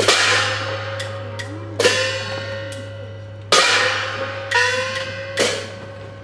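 A metal gong struck five times at an uneven pace, each stroke ringing on with a steady tone that slowly fades, with a few lighter clicks between the strokes; festival percussion for a Nagasaki Kunchi ship float.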